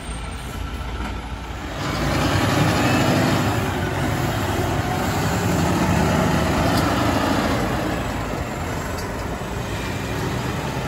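Kenworth W903L2 Aerocab semi truck with a tanker trailer driving past: its diesel engine running under load, growing louder about two seconds in as the truck comes close, then slowly fading as it pulls away.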